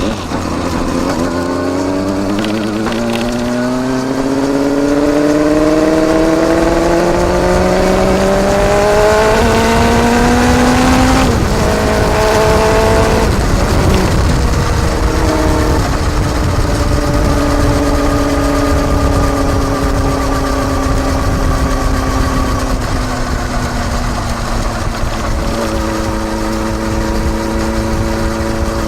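Kawasaki Balius 250 cc inline-four exhaust through a Wr's muffler with its baffle fitted, heard close at the silencer while riding. The pitch climbs steadily under acceleration for about ten seconds and drops abruptly about eleven seconds in. It shifts again a few seconds later, then runs at a steady cruise with the pitch slowly falling.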